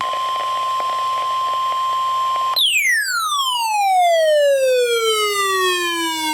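Weather radio warning alarm tone: a steady high tone over radio static that cuts off after about two and a half seconds. It is followed by a buzzy tone sliding steeply down in pitch for about four seconds.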